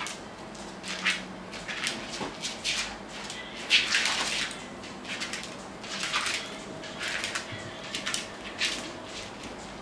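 Small dogs playing on a vinyl floor: short, irregular scuffles and scrabbles of paws and bodies, the loudest about four seconds in.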